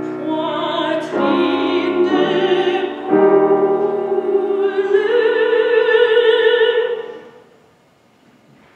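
Operatic soprano singing with grand piano accompaniment, ending the song on a long held high note with vibrato. The voice and piano stop about seven seconds in and the sound dies away in the hall's reverberation.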